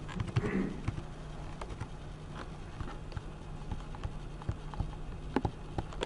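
Scattered light clicks and taps from a laptop's keys and trackpad, irregular and a few to the second, over a steady low hum of room noise.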